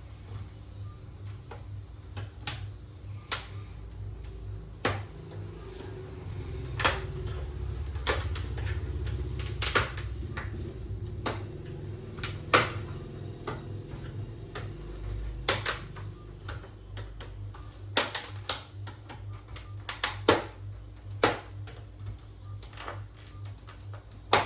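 Irregular sharp clicks and taps, roughly one a second, of tools and screws on the plastic and metal casing of an all-in-one PC being taken apart, with a low rumble of handling in the middle.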